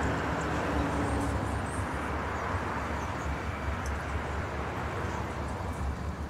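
Street traffic going by: a steady wash of vehicle noise with a low rumble, easing off slightly toward the end.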